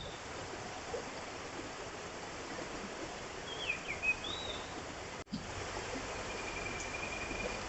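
Mountain river flowing steadily, with a bird giving a few quick slurred whistles about halfway through and a thin high trill near the end.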